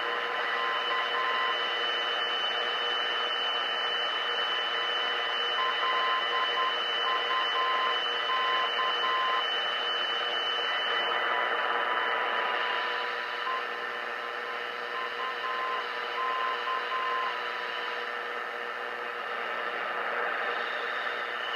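Radio Shack DX-160 receiver on the longwave band: static and hiss with steady whistles, and a beeping tone near 1 kHz keyed on and off in Morse, the identifier of a non-directional beacon. The beeping fades out past the middle.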